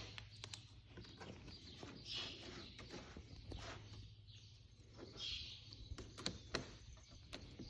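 Faint high peeps from a baby bird, two or three of them, among light clicks and knocks of handling.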